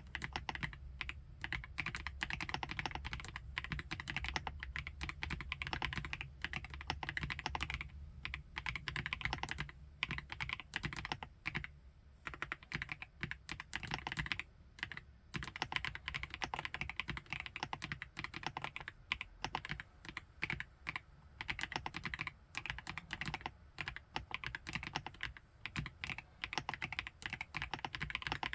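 FL-ESPORTS OG98 mechanical keyboard with MX Ice Silver linear switches being typed on steadily and fast: a dense run of key clicks that keeps going with only brief lulls.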